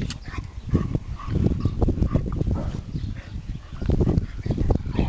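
Dogs at rough play, with short scattered grunts and yips over a loud, uneven low rumble.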